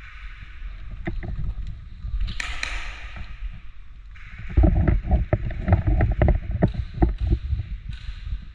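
Rumble and rustling of a body-worn camera microphone as the player moves, with a brief scraping rustle about two and a half seconds in and a run of irregular thumps and knocks from about halfway, like footsteps and gear knocking against the camera.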